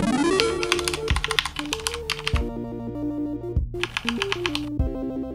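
Upbeat chiptune-style synth music with a square-wave melody and bass, opening on a quick rising run of notes. Over it, rapid computer-keyboard typing clicks come in a long run and then two shorter ones.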